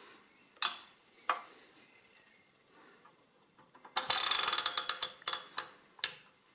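Clicking from the Quixsum Fractional Adding Machine's number wheels as they are turned with a pen used as a stylus. A few single clicks come in the first second or so, then a quick run of rapid clicks about four seconds in, followed by a few more single clicks.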